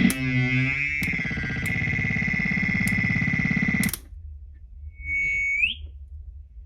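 Electro-Harmonix Poly Chorus pedal with feedback turned fully up, feeding back on itself: a loud sustained pitched drone that wavers and sweeps, broken by several sharp clicks, cutting off abruptly about four seconds in. A second later a short tone rises in pitch at its end.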